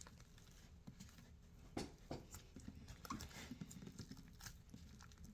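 Faint, scattered soft clicks and small squelches of sticky slime being handled and stretched.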